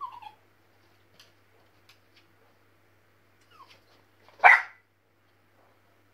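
West Highland white terrier puppy giving short falling whimpers, then one sharp, loud bark a little past the middle.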